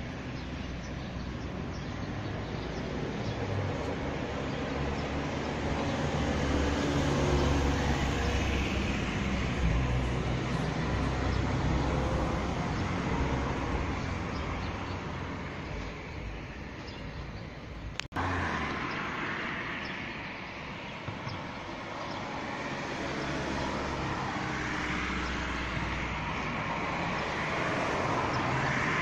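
Road traffic noise with a low rumble that swells as a vehicle passes and then fades, and swells again later. There is one sharp click about 18 seconds in.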